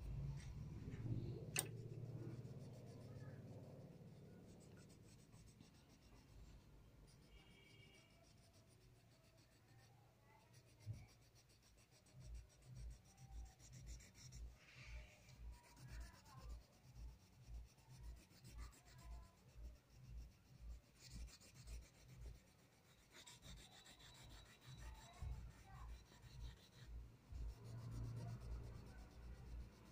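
A blue colour pencil shading back and forth on drawing paper, faint. In the second half the strokes come evenly, about two a second.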